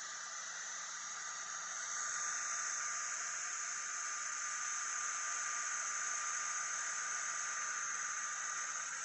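Built-in air assist of a Sculpfun S30 Pro diode laser engraver blowing through the brass nozzle: a steady hiss with a thin steady high tone. It swells louder, with a short rising tone, about two seconds in.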